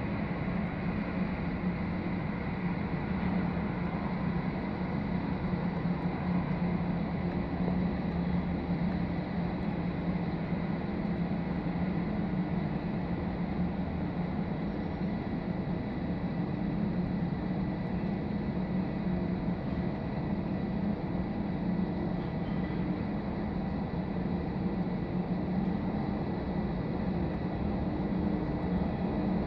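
Boeing 737-800's CFM56 turbofan engines running steadily at taxi idle: a constant low hum with a thin, steady high whine.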